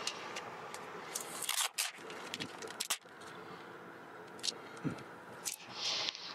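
Clear plastic transfer film of Bird Divert collision-prevention dots being handled and pressed onto window glass by hand: scattered sharp clicks and short crinkling, rubbing scrapes, the loudest about a second and a half in.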